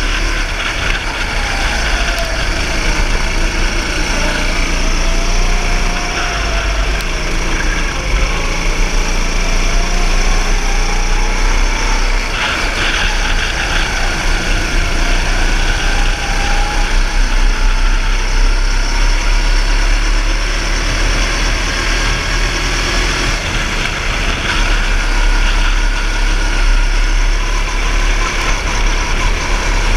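Go-kart engine running at speed on a lap, its pitch rising and falling with the throttle through the corners, over a low rumble of wind on the microphone.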